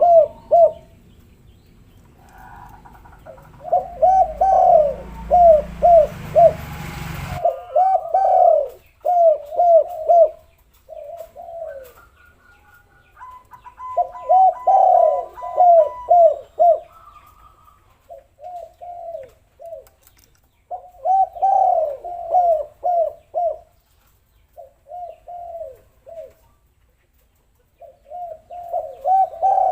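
Spotted doves cooing in repeated phrases of short, rolling notes with brief pauses between them. A rushing noise runs under the calls about three to seven seconds in.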